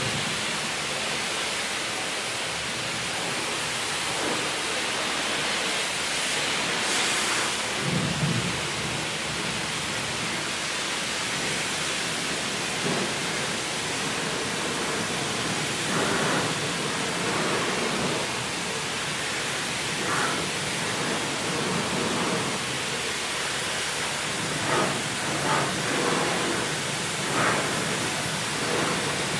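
High-pressure rinse wand at a self-service car wash spraying water onto a car: a steady hiss of spray spattering off the bodywork, with brief louder swells now and then, several of them near the end.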